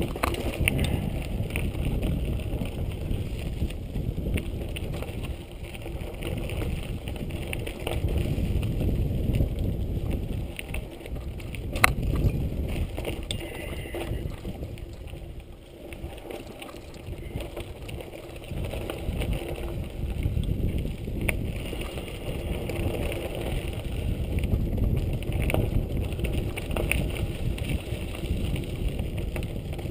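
Giant Boulder 0 29er mountain bike rolling along a dirt singletrack: tyres on loose dirt and the bike rattling over bumps, with wind buffeting the microphone. A sharp knock about twelve seconds in.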